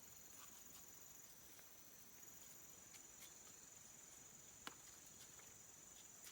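Insects giving a steady high-pitched drone, faint, with a few soft clicks and one sharper click about two-thirds of the way through.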